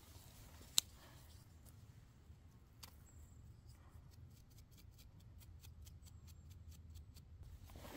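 A small bristle brush scrubbing dirt off a freshly picked lobster mushroom: a run of faint, light scratchy strokes, about four a second, starting a few seconds in. A single sharp click comes about a second in.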